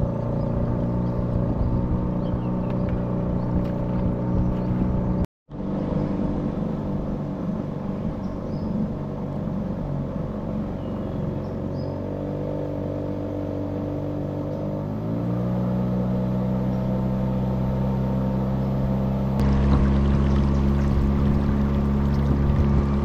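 A small boat's motor running steadily as a narrow wooden boat moves through the water; its pitch shifts about halfway through. It cuts out for a moment about five seconds in. In the last few seconds the water rushing along the hull gets louder, with a deeper rumble.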